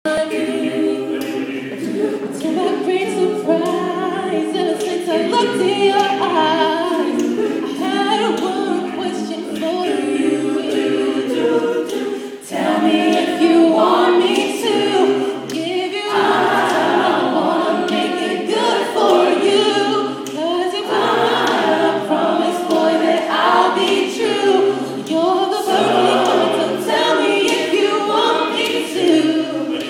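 Mixed a cappella group singing, a female lead voice over the group's backing vocals, with no instruments. The singing dips briefly a little before halfway and comes back fuller and louder.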